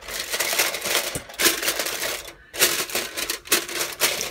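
Aluminium foil crinkling and crackling as it is pressed and crimped down around the rim of a bowl, in three stretches with short pauses between.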